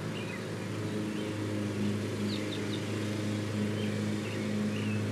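A steady low mechanical hum with a few faint, even tones in it, and now and then short high chirps from birds calling.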